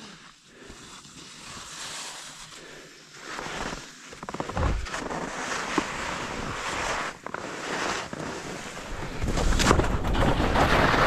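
Skis sliding and scraping over tracked snow, with wind on the microphone. The noise grows louder about four seconds in and louder again near the end.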